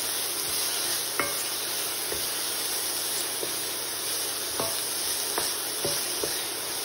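Chopped onions, sweet peppers and garlic sizzling as they sauté in olive oil in a stainless steel skillet, with a steady hiss. They are stirred with a wooden spoon that knocks against the pan a few times.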